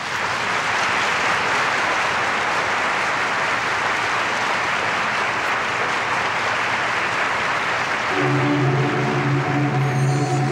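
Audience applauding. About eight seconds in, music with long held notes comes in under the clapping.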